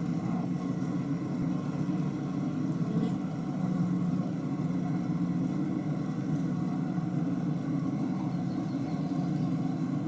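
A honeybee colony buzzing as a steady, even hum inside an opened top-bar hive, the massed wingbeats of many bees on the comb.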